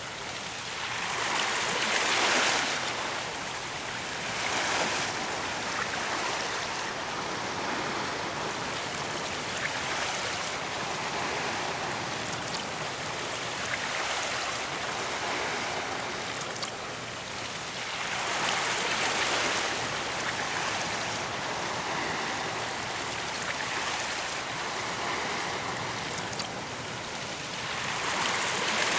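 Ocean surf: waves break and wash up on a beach as a steady hiss, with louder breakers swelling and fading every few seconds.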